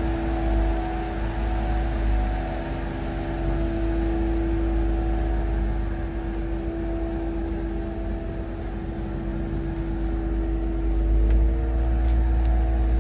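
BMW N55 turbocharged inline-six, swapped into an E46, running steadily at idle, heard from inside the cabin: a low rumble with a steady droning tone over it, slightly louder near the end.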